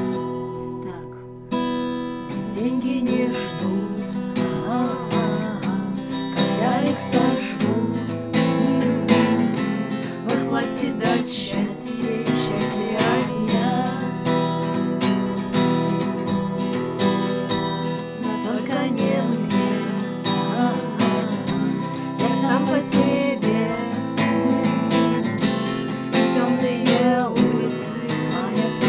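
Acoustic guitar strummed in chords, with two women singing a song together; the playing picks up again after a short quieter moment at the start.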